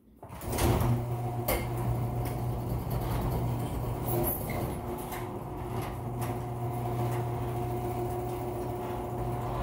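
Electric garage door opener raising a sectional garage door: a steady motor hum that starts just after the beginning, with a few clicks and rattles from the door.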